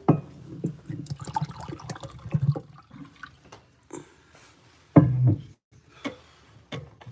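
A person drinking water close to the microphone, with irregular gulping and swallowing sounds and a louder gulp about five seconds in.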